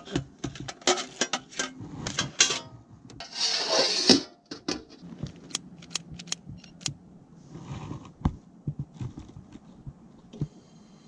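Stainless steel tray clattering as it is handled, then a series of sharp single clicks at a Coleman Power Pack propane camp stove as it is being lit with a handheld lighter. A steady hiss starts near the end.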